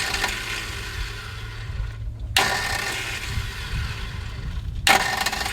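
1982 Datsun wagon's four-cylinder engine running unevenly as the gas pedal is pumped to keep it from stalling, because it will not idle. Over a steady low rumble, a loud hissy surge starts suddenly about every two and a half seconds, the second one about two and a half seconds in and another near the end.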